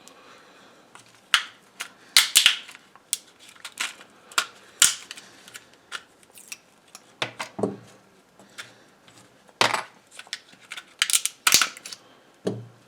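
Stiff plastic relay housing being forced and cracked apart by hand with tools: irregular sharp cracks and clicks, with small metal parts clinking as the case gives way.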